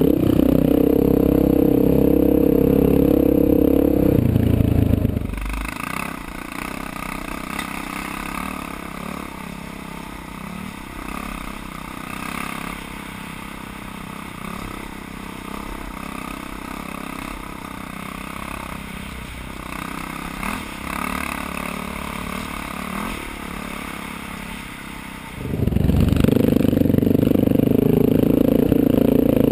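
Big single-cylinder four-stroke dual-sport motorcycle engine running under way on a rocky dirt trail, with wind and clatter. About five seconds in, the sound drops to a quieter, thinner engine note. The loud, deep engine sound returns near the end.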